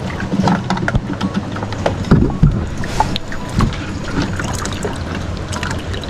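Small boat in shallow water: irregular knocks and clicks against the hull and water sloshing as a pole is worked in the water. A low steady hum runs underneath, and a few heavier thuds come in the middle.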